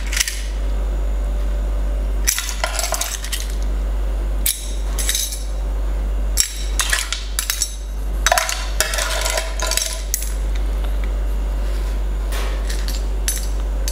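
Clams being plated from the pan onto spaghetti: their shells and a serving utensil clink against the pan and the plate in scattered bursts of clicks. A steady low hum runs underneath.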